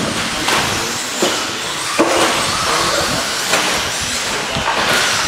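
Electric 1/10-scale RC stadium trucks racing: their motors whine and their tyres scrub on the track, with several sharp knocks as trucks land jumps.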